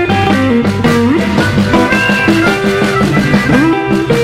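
Live blues band playing an instrumental passage: a lead guitar line with notes that slide up in pitch, over a bass line and a steady drum beat.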